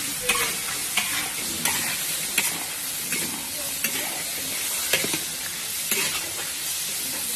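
Crayfish and dried chillies stir-frying in a large wok: a steady sizzle, with a metal spatula scraping and knocking against the wok about once a second.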